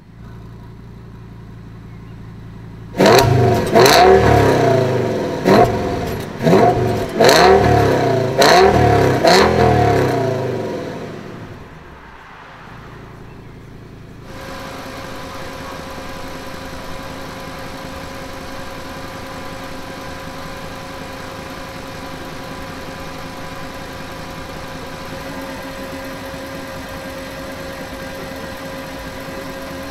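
Audi S8's 5.2 V10 engine idling, then revved hard several times in quick succession, each rev rising and falling in pitch, before dropping back to idle. After a sudden change a little later it idles steadily.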